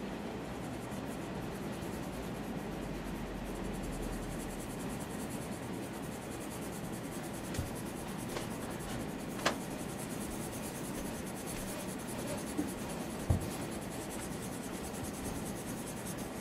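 Pencil shading on paper: a steady scratchy scribbling as the sky is filled in with back-and-forth strokes. A few brief taps stand out partway through.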